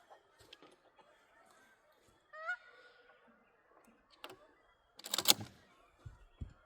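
A 12-gauge Mossberg 500 pump shotgun fires a 3-inch Winchester Longbeard XR #6 turkey load: one sharp blast about five seconds in. A short pitched call, bird-like, comes a few seconds earlier.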